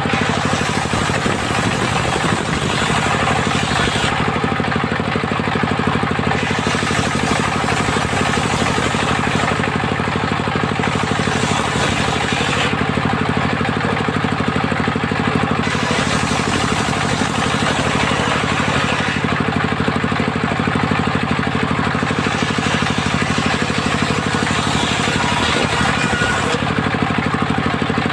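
Engine of a mobile circular-saw rig running steadily under power. A high hiss comes and goes in stretches of a few seconds.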